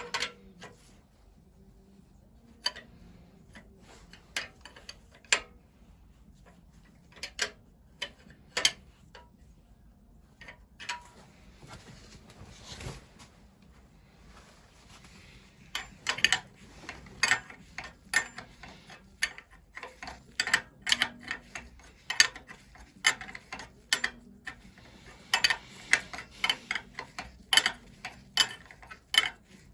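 Small, sharp metallic clicks and taps of hand tools and fittings being worked while pipework is fitted to a Lister engine's fuel and oil pump. Scattered single clicks at first, then quicker runs of several a second over the second half.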